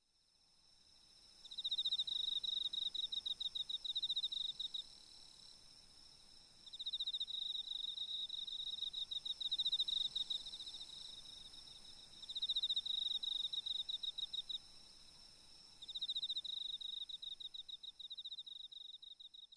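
Insects chirping: four bursts of rapid, high pulsed trilling, each a few seconds long, over a faint steady high hum.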